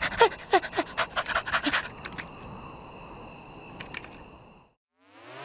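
Cartoon dog panting rapidly, about six quick breathy pants a second, for the first two seconds. A quiet steady hum follows and fades out, and near the end a rising electronic sweep begins.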